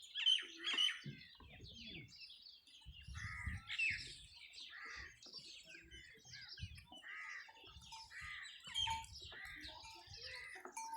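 Small birds chirping, a busy run of short repeated calls, with faint low knocks underneath.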